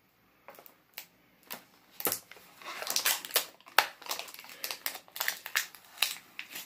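Plastic shrink wrap on a DVD case crinkling and tearing as it is picked off by hand, coming off in pieces. A few separate clicks come first, then a dense run of crackling from about two seconds in.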